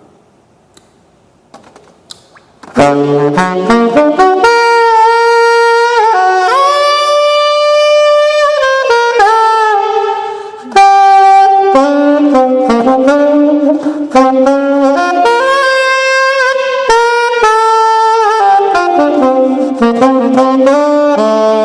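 A 1927 gold-plated Martin saxophone playing a slow melody of long, held notes. It comes in loudly about three seconds in, after a few faint clicks, and pauses briefly near the middle.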